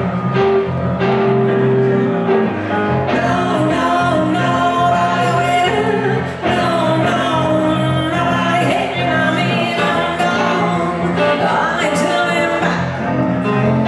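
Live blues band music: a man singing over a hollow-body archtop electric guitar and an electric stage keyboard.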